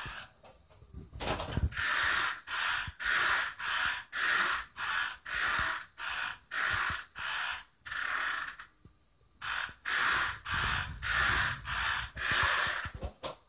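A hand-pushed vacuum sweeper rattling in short strokes, about two a second, as it is pushed back and forth over the floor, with a short pause about a second in and another near the two-thirds mark.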